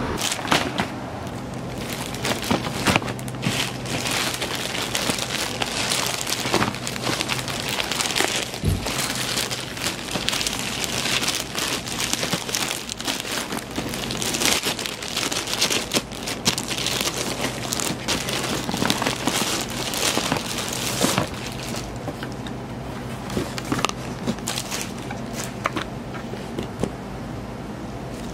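Plastic mailer bag crinkling and rustling as a parcel is opened and a shoe box unpacked. The crinkling is dense and busy at first and thins out about 21 seconds in.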